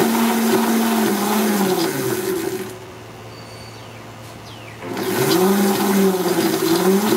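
Homemade potter's wheel's electric scooter motor and chain drive running with a steady whine. About a second in it winds down, its pitch falling, to a stop with only a faint hum left. About five seconds in it speeds back up under the foot pedal, the whine rising in pitch again.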